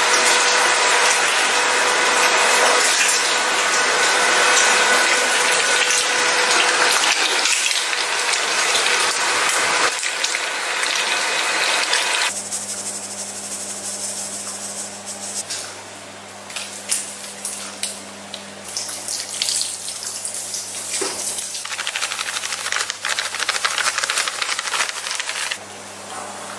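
Electric meat grinder running as pork pieces are fed through it: a loud, steady machine noise with a fixed whine. About twelve seconds in it gives way to a quieter, low motor hum from a stainless bowl machine, with scattered knocks and rattles as powder is tipped into the minced meat.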